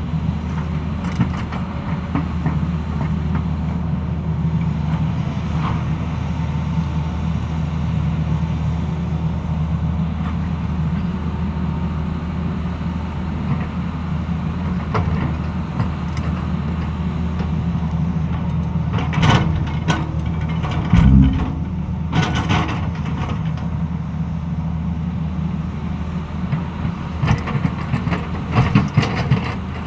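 Tata Hitachi crawler excavator's diesel engine running steadily under digging load, its bucket cutting into a dry, rocky hillside. Rock and soil scrape and clatter in bursts with a heavy thump about two-thirds of the way in, and more clattering near the end.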